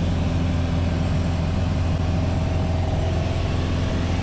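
Piper Warrior's four-cylinder Lycoming O-320 engine and propeller running steadily in flight, an even drone with a strong low hum.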